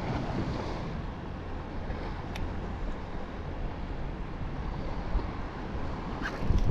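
Steady wind noise buffeting the microphone, with waves lapping on open water.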